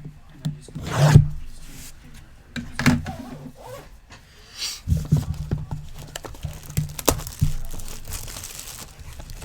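Wrapping being torn and crinkled off a box of trading cards, with irregular rustles, taps and crackles as the box is opened.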